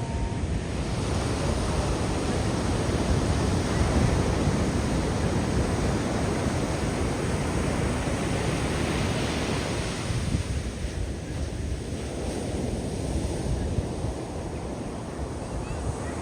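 Ocean surf washing onto a beach, a steady rushing that swells and eases as waves break and draw back, with some wind on the microphone.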